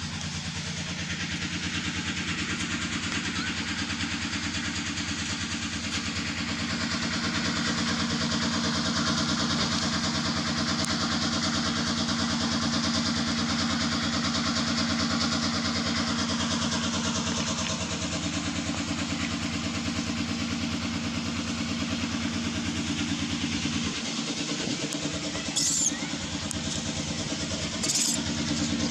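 A steady engine running, with two brief sharp high sounds near the end.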